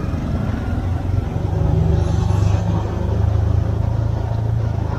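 Motorbike engine running steadily at low revs, a low even hum that swells slightly a couple of seconds in.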